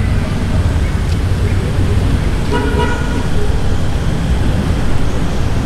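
Steady low rumble, like road traffic, with a short horn-like toot about halfway through.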